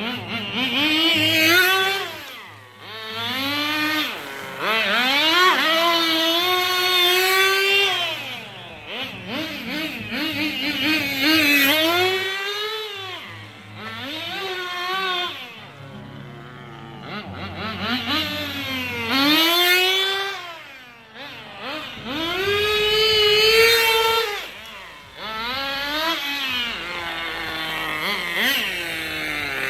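Tamiya TGS nitro RC car's small glow-plug engine running hard, revving up and dropping back over and over as the car makes runs and passes. The engine's pitch sweeps up and down with each run, and it is loudest as the car comes close.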